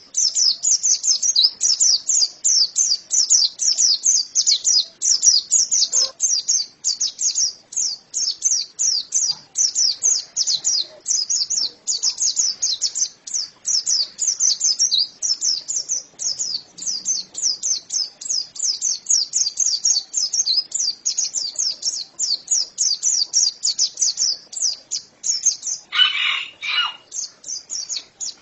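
White-eye (pleci) singing a fast, unbroken string of high chirps, several a second. About 26 seconds in, a brief lower, harsher sound cuts in for about a second.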